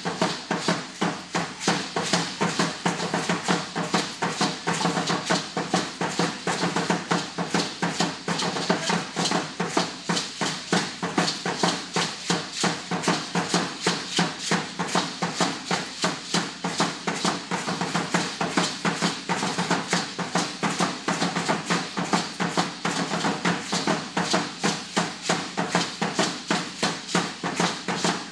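Danza azteca drumming on upright huehuetl drums, a steady fast beat of about three to four strokes a second, mixed with the dancers' ayoyote ankle rattles shaking in time.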